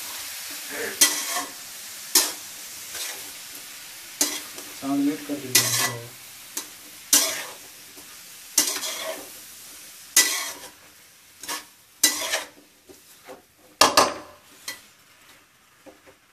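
Sliced onions sizzling in hot oil in a metal kadai while a metal spatula stirs them, scraping and clattering against the pan about once a second. The sizzle fades toward the end.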